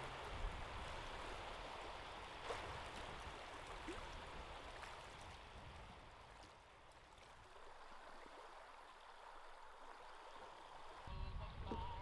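Faint lapping of small waves on a gravel lake shore: a soft, steady wash with a couple of light clicks. A low rumble comes in near the end.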